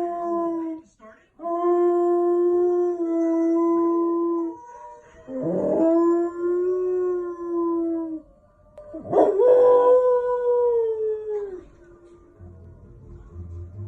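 A dog howling: a series of long, drawn-out howls of about three seconds each, one after another. Each howl starts with a quick upward scoop in pitch and then holds steady. The howls pause briefly near the end before another begins.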